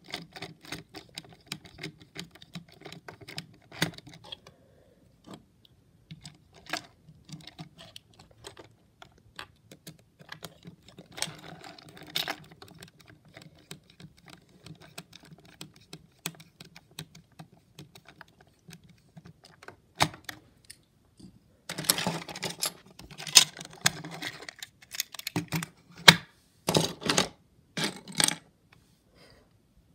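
Hexbug BattleBots Witch Doctor toy robot clicking and rattling as it is handled and run, its small plastic gears and parts clattering in quick runs. The rattling comes in louder bursts for the last third.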